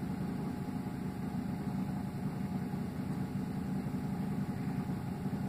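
Steady low mechanical hum of room ventilation, with a few faint steady higher tones and no change through the stretch.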